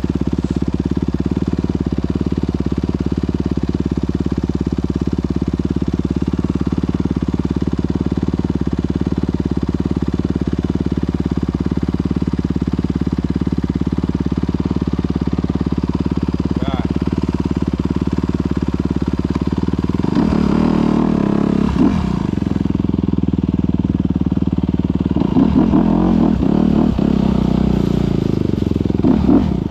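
Motorcycle engine running steadily at constant revs. In the last third the engine speed rises and falls a few times as it is revved.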